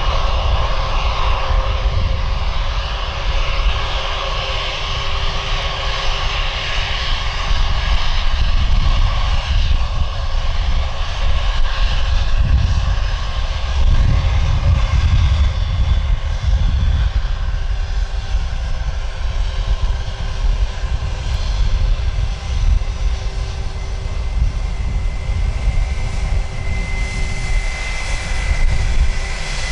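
Jet airliner engines running loudly as a plane passes on the runway: a steady rush of noise over a heavy low rumble, with a fan whine that grows stronger near the end.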